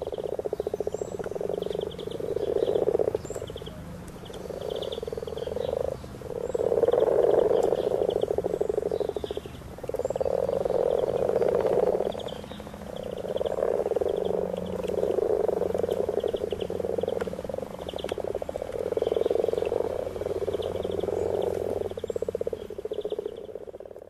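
Mating chorus of common frogs in a garden pond: a low, purring sound of many overlapping rasping purrs that swell and fade every second or two.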